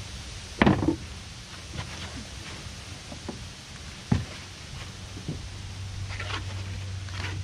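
Mahogany bench seat being set down and shifted into place on a boat, with a sharp wooden knock about half a second in and another about four seconds in, plus lighter knocks and scuffs between. A low steady hum comes in about halfway through.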